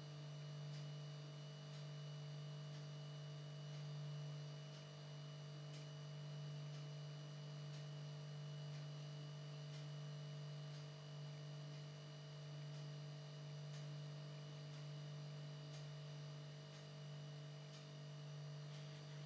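A faint, steady low hum with thin, higher steady tones above it, and a few faint ticks scattered irregularly through it.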